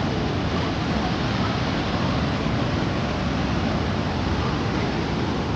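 Waterfall water rushing in a steady, unbroken wash of noise.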